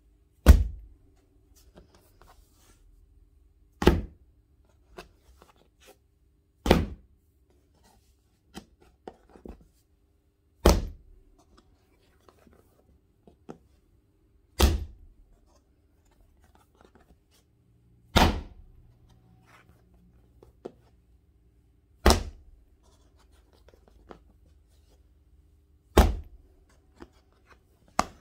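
A clay slab coated in iron-rich slip and sodium silicate being slapped down hard onto a work surface, eight sharp slaps about four seconds apart. Each slap stretches the slab and opens the crackle pattern in its surface.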